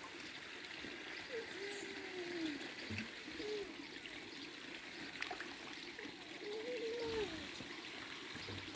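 Koi pond water trickling and splashing steadily at the surface. A few faint, wavering pitched sounds come and go in the background.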